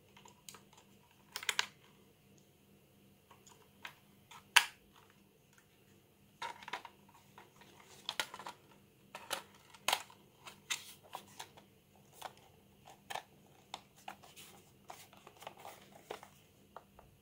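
Sharp plastic clicks and taps from fitting batteries into a Brother P-touch PT-H110 label maker's battery compartment and pressing its back cover shut. One click about four and a half seconds in is the loudest, and a quick run of smaller clicks and knocks follows.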